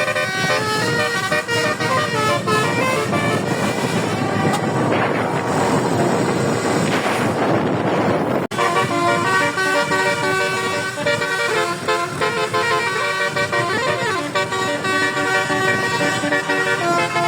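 Multi-trumpet telolet bus horn (basuri, twelve roof-mounted trumpets) playing a melody in quick stepped notes. A rushing noise without clear notes covers the middle for a few seconds, and the sound cuts out briefly about eight and a half seconds in before the horn tune resumes.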